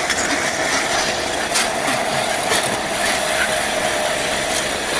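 A person riding down a long roller slide, the metal rollers rattling steadily and continuously beneath her.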